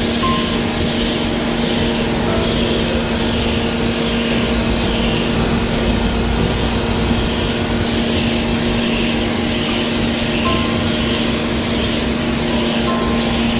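Pressure washer running steadily with a constant motor-and-pump hum, its water jet hissing on a concrete floor; the hiss swells and fades about once a second as the spray is swept back and forth.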